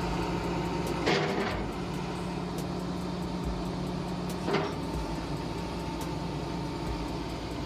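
Sinomach excavator's diesel engine running steadily with a low hum, and two short louder noises, about a second in and again about four and a half seconds in.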